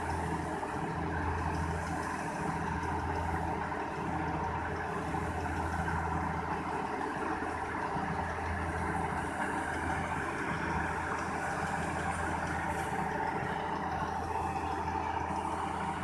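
Combine harvester running steadily at work, its engine and threshing machinery giving a continuous low hum as it blows chopped wheat straw out through its chute onto a pile.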